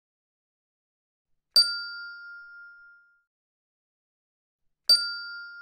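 Two identical bright dings, a bell-like chime sound effect struck twice about three seconds apart. Each ding rings out and fades over about a second and a half.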